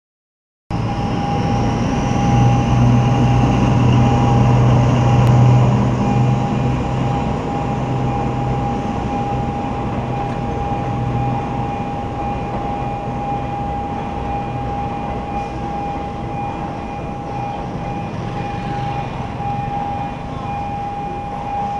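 Diesel-hauled passenger train crossing a road at a level crossing: the locomotive's engine is loudest over the first several seconds, then the carriages roll past more quietly. The crossing's warning signal sounds a steady tone throughout.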